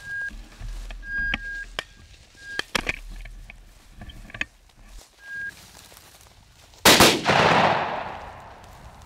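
A single shotgun shot about seven seconds in, its report echoing and dying away over about two seconds. Before it there are steps through dry grass and short high beeps repeating every second or so.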